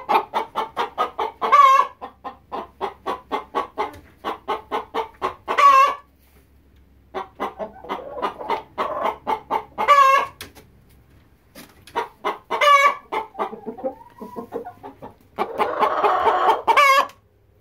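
A flock of hens clucking: runs of rapid clucks, about four a second, each run ending in a loud drawn-out squawk, over and over, with a longer, denser burst of calling near the end.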